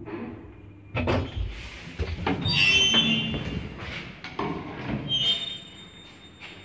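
Old Zremb passenger lift in operation: a run of metal clanks and knocks from its doors and mechanism. There is a squeal about two and a half seconds in, then another clank about five seconds in, followed by a thin high tone that holds for a few seconds.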